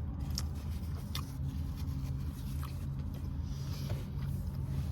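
Steady low hum of a car idling, heard from inside the cabin, with a few faint scattered clicks.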